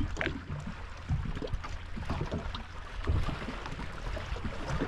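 Small waves lapping and slapping against the hull of a bass boat, over a steady low rumble, with scattered small knocks.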